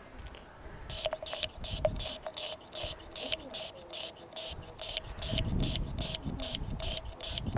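Swix Glide Wax Cleaner aerosol can spraying into a glass bottle in quick sputtering hisses, about four a second, starting about a second in. A low rumble joins in over the last couple of seconds.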